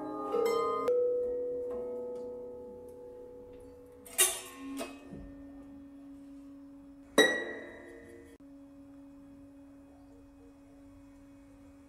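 Sparse instrumental music: single notes left to ring and fade, with sharper strikes about four and seven seconds in and a quiet held tone beneath.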